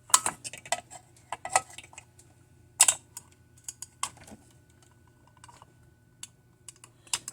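Irregular sharp clicks and light clatter of small hard parts and hand tools being handled, a few louder knocks among them, over a faint steady low hum.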